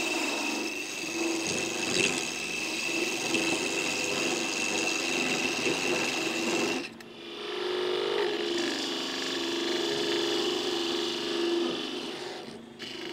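Bedan cutting into a spinning wooden blank on a wood lathe, bringing a tenon down to 3/4 inch with an open-end wrench held against it as a sizing gauge. The cutting noise is steady, stops briefly about seven seconds in, then resumes.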